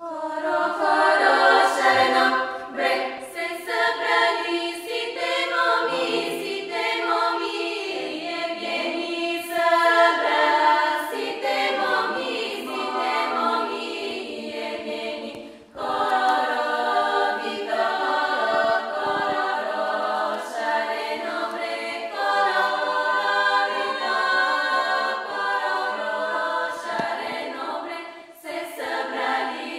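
Bulgarian women's choir singing a cappella, several voices together in Bulgarian folk style, with a brief break about halfway through before the singing resumes.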